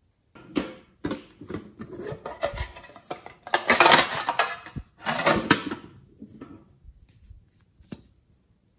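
Red metal tin handled and opened, its lid scraping and clattering in a run of sharp clicks and scrapes, loudest around the middle; a few light taps follow near the end.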